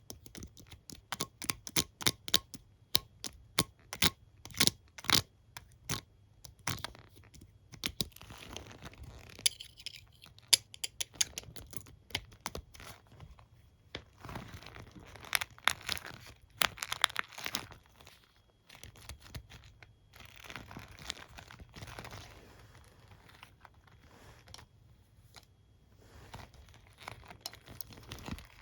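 Plastic comb and hairbrush handled close to the microphone: quick sharp taps and clicks, several a second, then from about seven seconds in slower scratchy strokes of the bristles and teeth being rubbed.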